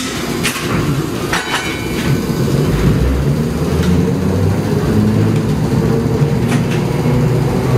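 Replica Birney streetcar, built by Gomaco, pulling away and running on its rails, heard from inside the car. A steady low rumble grows a little louder over the first few seconds, with a few sharp clicks and knocks.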